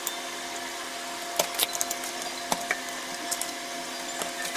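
Scattered small plastic clicks and taps as wire connectors are handled and pushed onto an induction cooker's circuit board, over a steady low hum.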